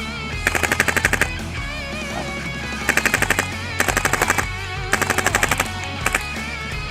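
Airsoft gun firing full-auto in five short bursts of rapid shots, over rock music with electric guitar.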